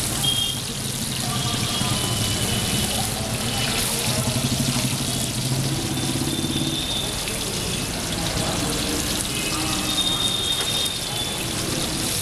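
Battered tilapia deep-frying in a wide pan of hot oil: a steady sizzle, with street noise of engines and voices behind it.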